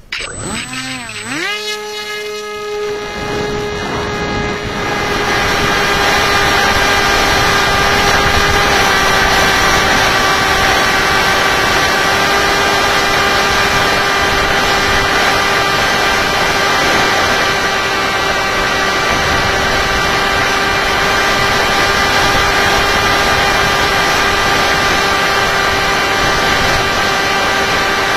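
Electric motor and propeller of a Tek Sumo flying wing, heard from its onboard camera, spinning up quickly to a steady high whine that holds for the rest of the flight. A rush of air noise grows about four seconds in as the plane gets under way.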